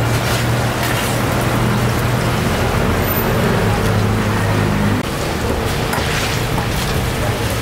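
Hot oil sizzling and bubbling in a wok as sweet potato balls deep-fry, with a perforated stainless strainer pressing and stirring them, the step that puffs the balls up hollow. A steady low hum runs underneath, and the sound drops slightly about five seconds in.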